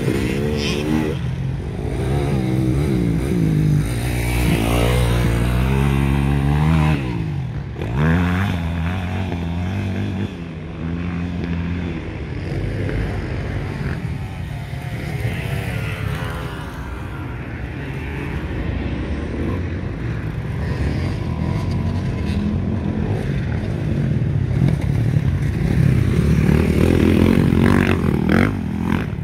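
Motocross dirt bike engines revving up and down as riders pass along the track, the engine notes rising and falling over and over. They are loudest in the first half and build again near the end.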